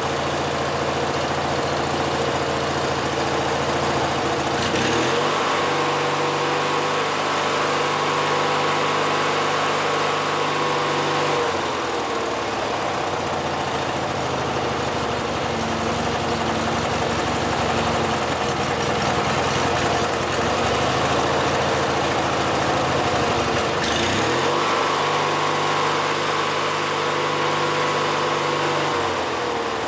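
Riding lawn mower engine running just after an oil change, so the fresh oil circulates before the level is rechecked. It idles, is sped up about five seconds in and drops back to idle at about eleven seconds, then is sped up again near 24 seconds and falls back just before the end.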